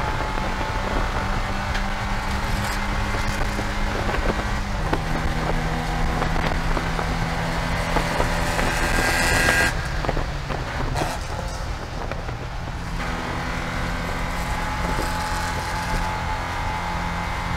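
Porsche 944 Spec race car's inline-four engine running hard at racing speed, heard from inside the car. Its pitch steps down about five seconds in. Around ten seconds in the engine note eases and the high rush drops away for about three seconds, then comes back.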